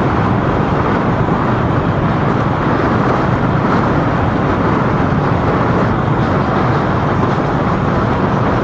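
Steady road and traffic noise from a moving vehicle driving through city streets: a continuous even rush with no distinct events.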